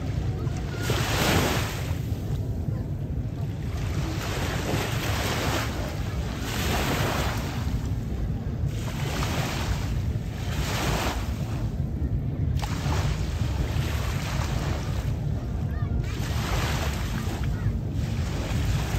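Water splashing in repeated surges every two seconds or so, over a steady low rumble of wind on the microphone.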